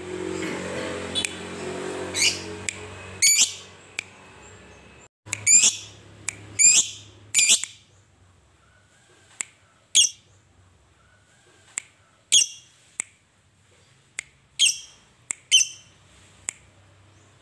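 Caged lovebird giving short, sharp squawks and chirps at irregular intervals, some in quick pairs. A rough continuous sound runs under the calls for the first four seconds, then drops away.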